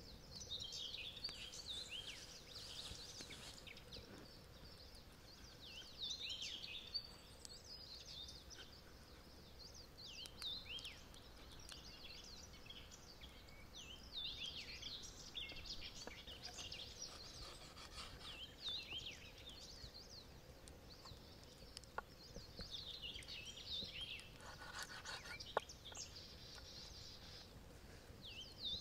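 Wild songbirds singing in short phrases of quick, high chirps, a new phrase every few seconds, over a faint steady outdoor background. Two sharp clicks come in the later part.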